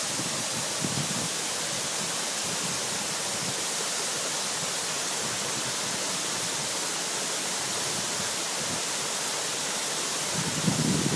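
Waterfall cascading over rock ledges: a steady, even rush of falling water.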